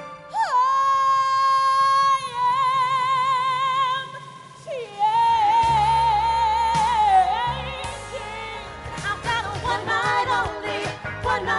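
Female soul singers belting long held notes with wide vibrato, one long note then a second a moment later. About eight seconds in, fuller singing with band backing comes in.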